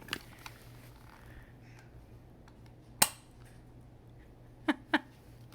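Toy dart gun firing a rubber dart: one sharp snap about three seconds in. Near the end come two short pitched calls.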